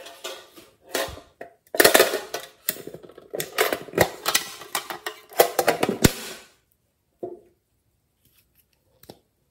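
Plastic makeup case being handled and opened: a dense run of clicks, taps and rattles with a few sharp knocks, which stops about six and a half seconds in. One or two single clicks follow.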